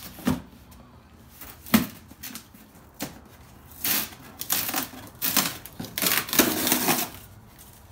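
A cardboard parts box being handled and opened: a few sharp knocks, then a run of rustling and scraping of cardboard and packing from about four seconds in.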